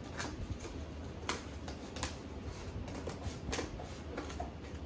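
Packaging being handled and opened, crinkling and rustling in irregular crackles and small clicks over a low steady hum.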